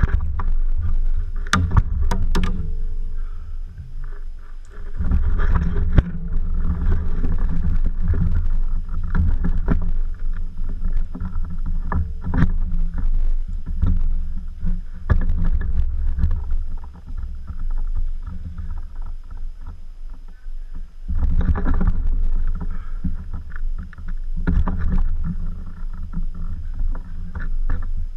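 Steady, uneven low rumble of movement and rubbing noise on a body-worn camera's microphone, broken by a few sharp clicks near the start and again a few seconds apart later on.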